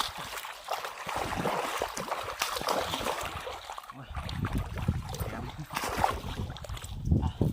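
Wind rumbling on the microphone, setting in about four seconds in, after a stretch of crackling, rustling noise.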